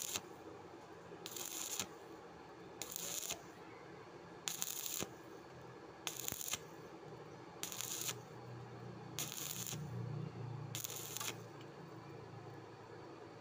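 Stick-welding arc crackling in short bursts of about half a second, roughly every one and a half seconds, as the electrode burns against the steel tube.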